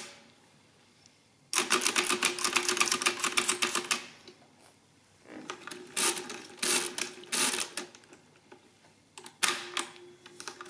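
Facit CM2-16 pinwheel calculator's mechanism clattering as it is worked by its hand crank: a fast run of clicking about a second and a half in that lasts about two and a half seconds, then shorter clattering runs later on.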